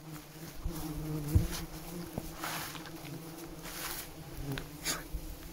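A flying insect buzzing close by, a steady low hum, with a few soft rustles or knocks.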